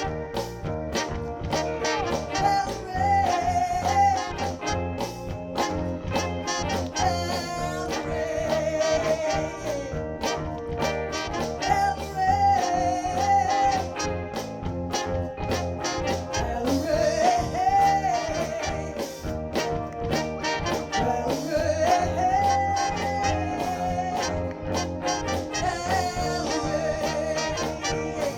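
Live soul band with a horn section playing a passage without lyrics. A wavering lead melody line runs over steady drums and bass.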